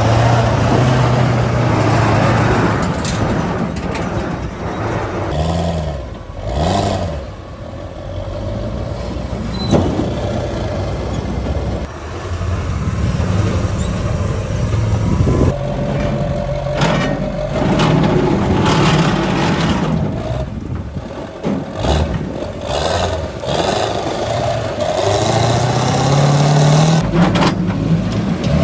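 Monster truck engine running and revving, its pitch rising and falling again and again, with a sharp knock about ten seconds in.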